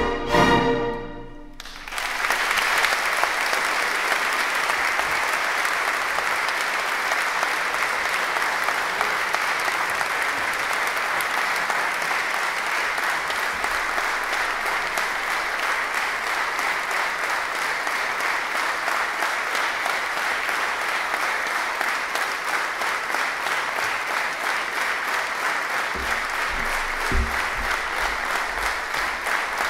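An orchestra's final chord ends at the very start, then after about a second's pause a concert audience breaks into steady applause, with a few low thumps near the end.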